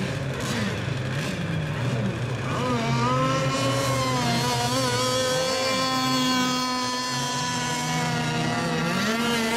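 Several radio-controlled race boat engines running on the water, their pitches wavering as they throttle up and down. About two and a half seconds in, one engine rises to a high, steady whine and holds it, as if running at speed close by.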